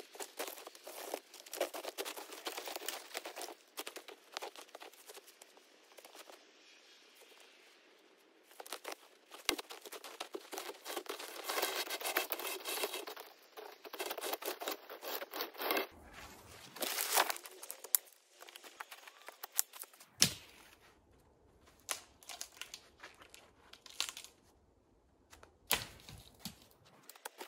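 Footsteps crunching in snow while a cut log is dragged by hand through snow and brush, with dry twigs crackling and snapping in irregular bursts and a couple of quieter pauses.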